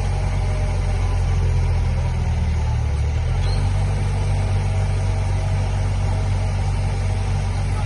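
Heavy diesel engine of a working crane running steadily, with a brief change in its low hum about three seconds in.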